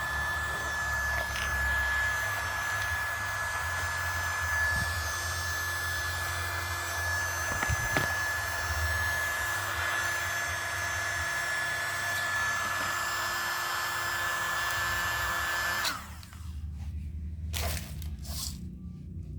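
USB-powered mini keyboard vacuum cleaner running with a steady high whine over its motor noise, switched off about 16 seconds in, followed by a few light handling knocks.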